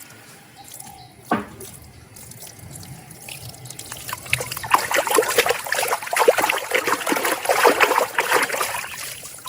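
Water trickling and splashing as a muddy plastic toy animal is washed. Quiet at first with a single knock, then getting louder from about four seconds in.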